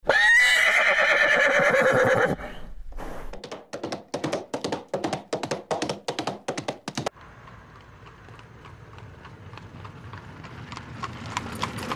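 A horse whinnies for about two seconds. Quick clip-clop of hooves follows, at about four beats a second. A little after halfway the hoofbeats turn softer and then slowly grow louder again.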